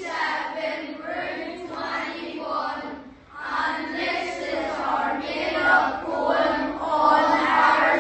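A group of voices singing a song in phrases, choir-like, with a short break about three seconds in.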